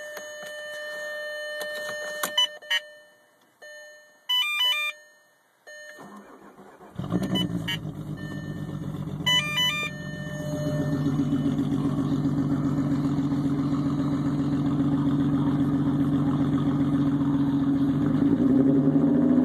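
Several electronic beeps and chimes, then a VW VR6 six-cylinder engine starts about 7 seconds in and idles steadily, getting a little louder a few seconds later, with a brief rev near the end. The owner reports that this engine is misfiring.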